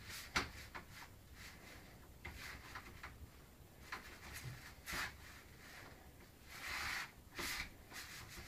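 Letters being pushed through a door's letterbox slot: light clicks and taps of the flap and paper scraping and rustling in the slot, with a longer rustle near the end.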